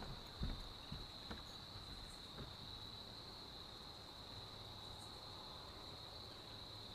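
Crickets trilling in one steady, unbroken high-pitched drone, with a few soft knocks in the first two or three seconds.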